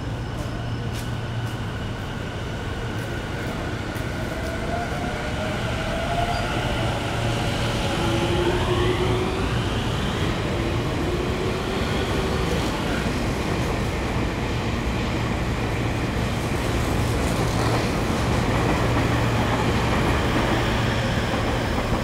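Tobu 50090 series electric train pulling away from the platform. A few seconds in, the motor whine glides up in pitch as the train gathers speed. Then the running noise of the passing cars grows louder and holds.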